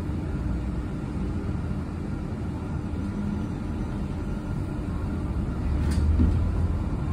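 Interior ride noise of a moving electric city bus: a steady low rumble of tyres and road, swelling slightly near the end, with a faint click about six seconds in.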